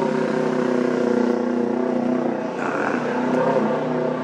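A steady engine drone: a low hum with several held tones.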